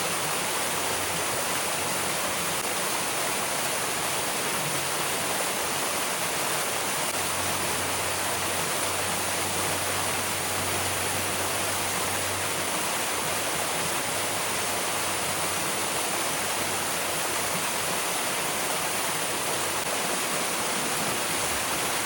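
Waterfall water rushing in a steady, unbroken roar.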